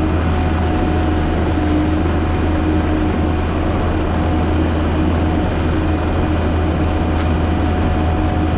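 A heavy diesel engine running steadily at a constant speed: a strong, even low drone with a faint steady whine above it.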